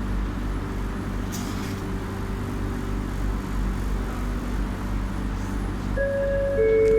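Steady low running rumble inside an LRT train carriage, with a short hiss about a second in. Near the end, a loud electronic chime starts, alternating between two notes.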